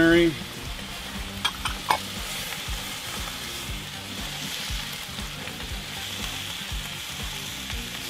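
Chopped vegetables sizzling steadily in duck fat and chicken broth in a cast iron skillet, stirred with a spatula that scrapes the pan, with a few sharp clicks about one and a half to two seconds in.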